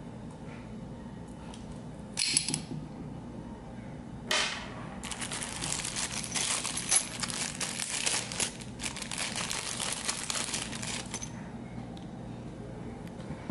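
Clear plastic bag crinkling as it is handled for about six seconds, starting about five seconds in, after two short rustles.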